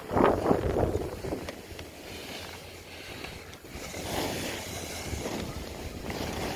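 Wind buffeting the phone's microphone during a downhill ski run, with skis scraping over packed snow in swells as the skier turns.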